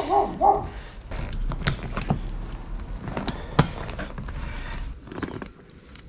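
Light metallic clinks and clicks, irregular and scattered, as a metal snap hook on a braided boat rope is handled and clipped onto a D-ring of an inflatable boat.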